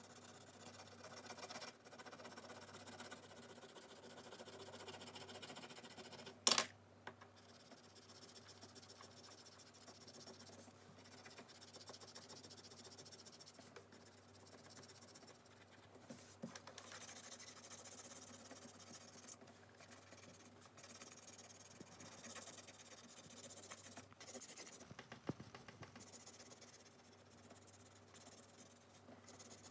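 Blue coloured pencil shading on paper, a faint continuous scratchy rubbing of rapid back-and-forth strokes. A single sharp click about six and a half seconds in.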